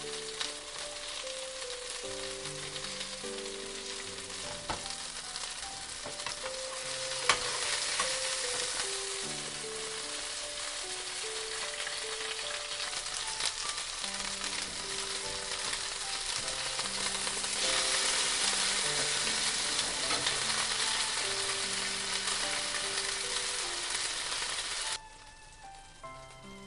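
Food sizzling and frying in a hot pan, a dense hiss that grows louder twice and stops abruptly near the end, with a couple of sharp clicks along the way.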